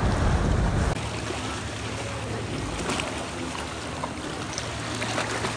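Sea water sloshing and splashing around a small boat, with a steady low hum under it. A louder low rumble in the first second cuts off abruptly.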